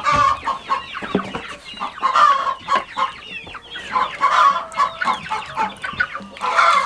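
Several chickens clucking, with many short calls overlapping one another.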